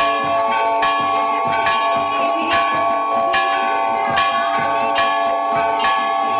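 Hindu temple bells ringing as in an aarti: bells struck steadily, a little faster than once a second, their ringing tones held between strikes.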